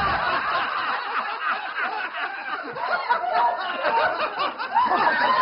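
A group of men and women laughing hard together, many voices overlapping.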